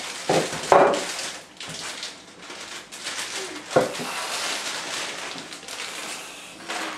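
Aerosol can of whipped cream spraying onto a plate with a hissing sputter, broken by a couple of short louder knocks, one near the start and one about four seconds in.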